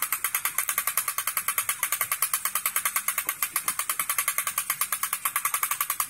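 Manual winch for a poultry nipple drinker line being wound, its ratchet giving a rapid, even clicking.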